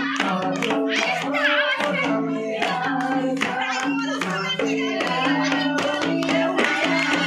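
A man singing a Nepali Deusi Bhailo festival song into a microphone, accompanied by a madal hand drum and rhythmic hand-clapping.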